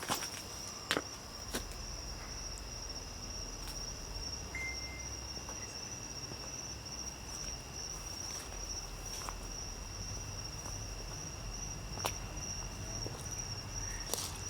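Insects trilling in one steady high, unbroken tone, with a few faint clicks or knocks scattered through it.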